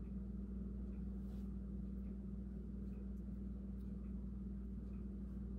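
Steady low hum with a faint tick about once a second.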